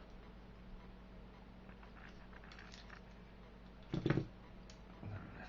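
Small metal multi-tools being handled: a few light clicks and taps, then one louder knock about four seconds in.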